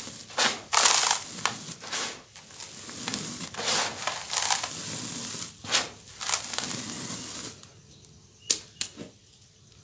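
Dry, gritty sand crunching and pouring from hands back into a pile, in a run of noisy rushes. It turns quieter near the end, with two sharp clicks.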